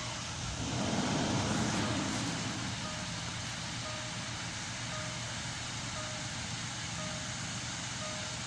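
Land Rover LR4 engine running, with a louder swell about a second in. Over it a short electronic warning beep repeats about once a second. The engine is running hot, which the mechanic traces to an open circuit in the cooling fan.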